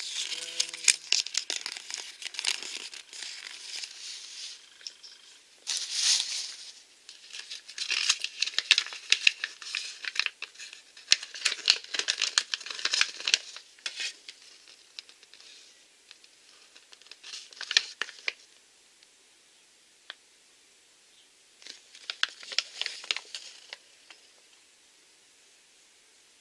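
Paper and packaging being handled and crinkled in irregular bouts of rustling, with a few sharper crackles. The bouts thin out after about fourteen seconds and fall quiet near the end.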